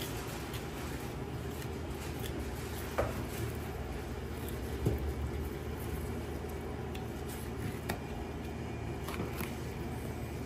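Steady low background hum, with a few faint knocks and clicks about three, five and eight seconds in as raw beef is pulled apart by hand on a cutting board.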